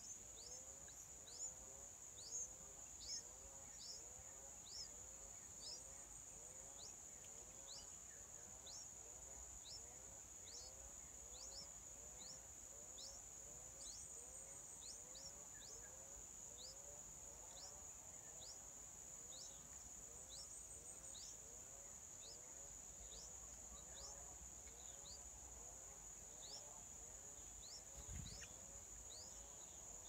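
Faint outdoor ambience: a steady high insect drone, with a repeating series of short, quick rising chirps and a lower rising-and-falling call repeated a little faster than once a second. There is a soft low thump near the end.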